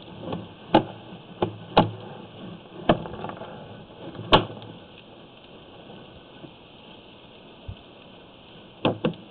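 Sharp knocks and clunks, about seven, irregularly spaced, with a quiet stretch in the middle, as a sewer inspection camera and its push cable are fed through a drain pipe.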